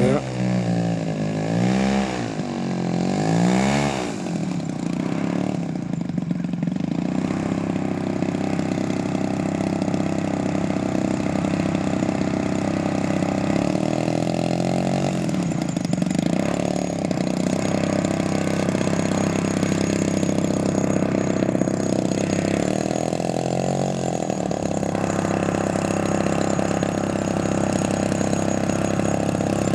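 Engine of a giant 45%-scale Decathlon RC airplane running at low throttle on the runway. Its pitch swings up and down with throttle blips in the first few seconds, and again briefly around the middle and about two-thirds through, with steady running in between.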